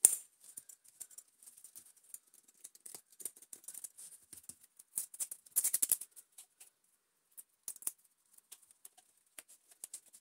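Crackling and clicking as adhesive tape is cut and peeled off the cuff of a corrugated plastic vacuum-cleaner hose. A sharp click comes right at the start, and a denser burst of crackling comes about five to six seconds in.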